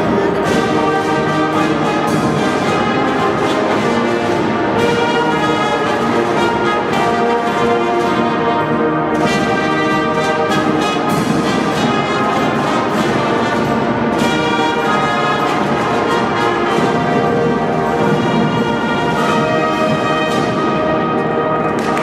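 Youth brass-and-drum marching band playing a tune. Brass instruments carry the melody over a steady beat of snare drums.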